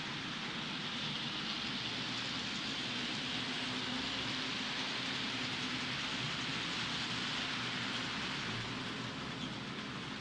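Model ST44 diesel locomotive pulling a freight train on model track: a steady rush of small wheels running on the rails, with a faint low motor hum under it.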